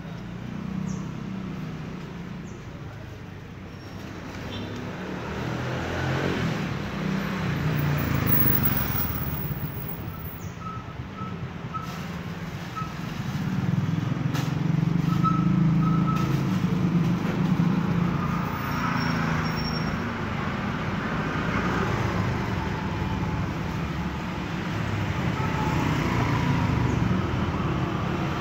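Motorbike engines passing along a narrow street, the hum swelling and fading several times, loudest about halfway through and again near the end as one rides close by.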